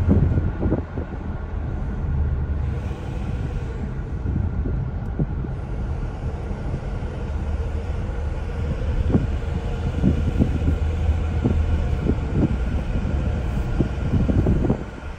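Car driving along a road, heard from inside the cabin: a steady low rumble of engine and tyres, with scattered light knocks and thumps.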